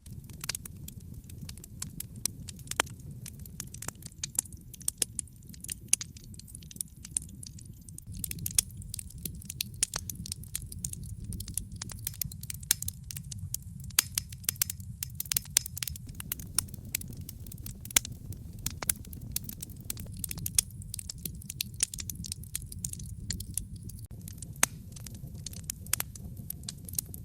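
Wood fire crackling: dense, irregular snaps and pops over a steady low rumble of the burning logs.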